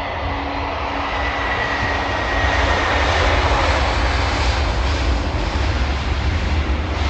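Jet airliner landing: a steady engine roar swells to its loudest a few seconds in as the plane rolls out on the runway after touchdown, with a faint high whine dropping slightly in pitch.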